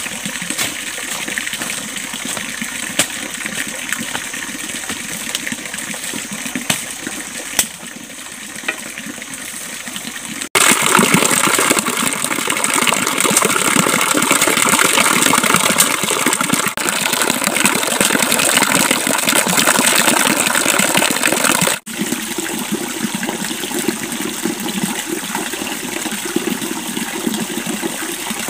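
Small forest stream running steadily over rock. For about eleven seconds in the middle the water is much louder and closer, pouring down a mossy rock face, then it drops back to a more distant rush.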